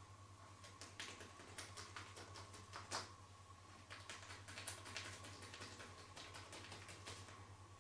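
Faint, irregular clicks and taps of hands working during a massage, with one sharper click about three seconds in, over a steady electrical hum.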